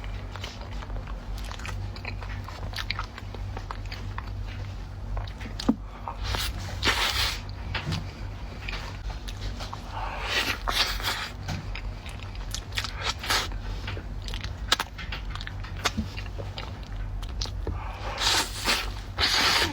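Close-miked eating of a dessert: repeated bites and wet chewing with many small mouth clicks, and a few louder bursts of chewing along the way. A steady low hum runs beneath.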